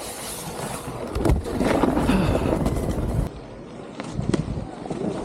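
Snowboard sliding and scraping over packed snow, with a rough grinding noise that grows louder from about a second in and eases off past the middle.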